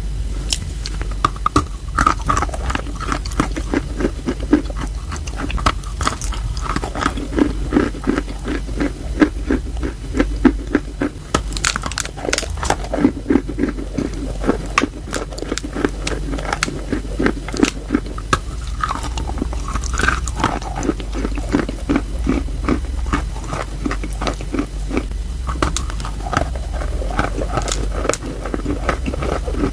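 Close-miked biting, crunching and chewing of wet chalk in the mouth: a dense run of crackling bites in a steady chewing rhythm. A low steady hum lies underneath.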